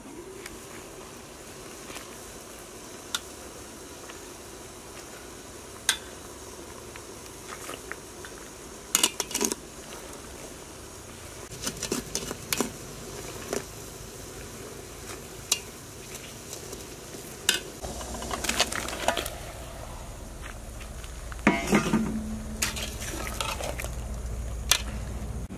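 Metal lid and ladle clinking and scraping against an aluminium cooking pot now and then, busiest in the second half, as syrup boils and sliced bananas are stirred in. Underneath is a steady hiss.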